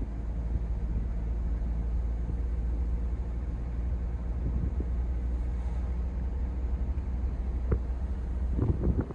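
Cabin sound of a 1979 Mercedes-Benz 300SD under way: its 3.0-litre turbo-diesel inline-five and the road noise make a steady low rumble. A few short knocks come near the end.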